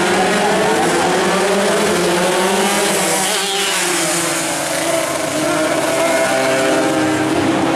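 Several Suzuki Sport 120 two-stroke racing motorcycles running hard, a mix of high engine notes rising and falling in pitch as the bikes rev and pass.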